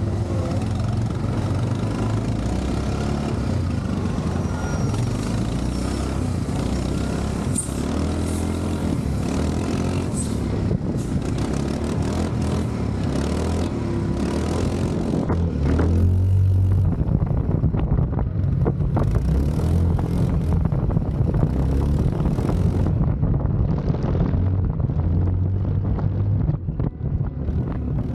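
Quad bike (ATV) engine running, its pitch rising and falling with the throttle, a little louder from about halfway through.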